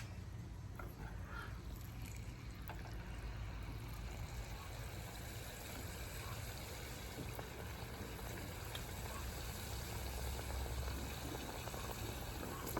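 Chicken drumstick and thigh frying in hot oil: a steady sizzle.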